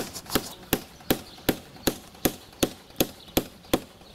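A rapid, evenly spaced series of sharp knocks, a little under three a second, that stops shortly before the end.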